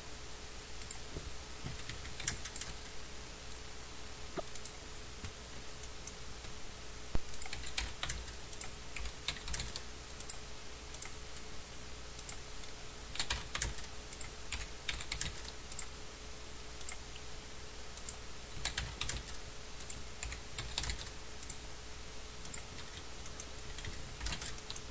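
Computer keyboard keystrokes in scattered short runs of clicks, over a steady faint hum.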